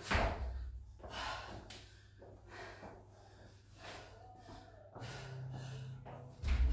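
A woman panting hard, out of breath mid-workout: sharp gasping breaths about once a second. A low thud comes near the end.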